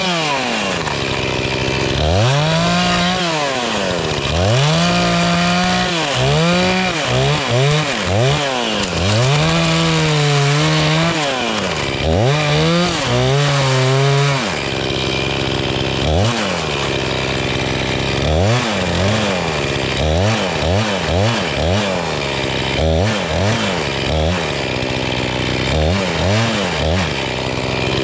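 Chainsaw cutting maple limbs, the throttle opened and eased off over and over: held at high revs for a second or two at a time in the first half, then a run of quicker, shorter revs.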